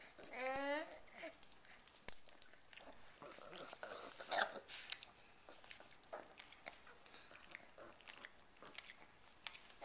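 A baby's short wavering squeal about half a second in, followed by small mouth and chewing sounds while eating banana, with a brief louder smack around four seconds in.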